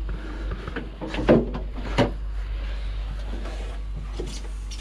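Knocks and clunks of someone making his way through a yacht's narrow keel tunnel, the loudest just over a second in and another at about two seconds, over a steady low hum.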